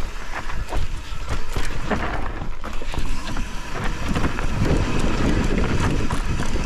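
Mountain bike rolling down a loose, rocky dirt trail: tyres crunching over gravel and stones, with frequent sharp clicks and knocks from the bike rattling over the rocks. A steady low rumble of wind on the camera microphone runs underneath.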